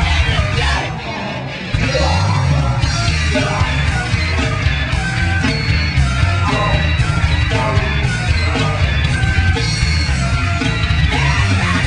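Loud, fast heavy metal music with yelled vocals. It dips briefly about a second in, then cuts back in at full loudness.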